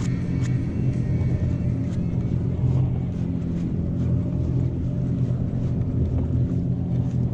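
Jet ski engine running steadily at low trolling speed, a constant low hum.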